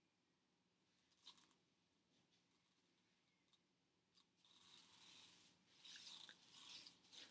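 Near silence: room tone with a few faint clicks in the first half and soft, faint rustling from a little past halfway.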